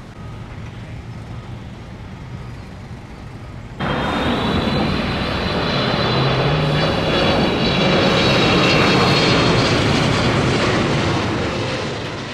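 Steady low rumble, then about four seconds in a loud jet airliner engine noise with a high whine sets in abruptly, swells, and eases slightly near the end.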